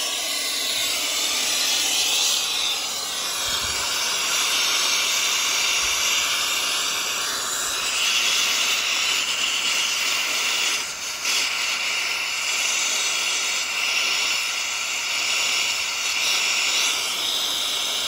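Hand torch flame hissing steadily as it heats a copper refrigerant line joint for silver soldering, with a brief dip about eleven seconds in.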